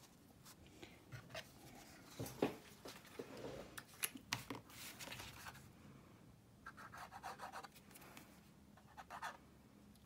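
Cardstock rustling and tapping as it is handled, then the tip of a squeezed liquid glue bottle rubbing over the card, with short crackly bursts in two clusters late on as the glue won't flow properly.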